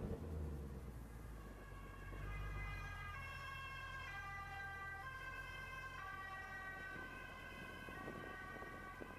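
Faint, distant police sirens, their tones stepping between pitches about once a second, over a low steady hum.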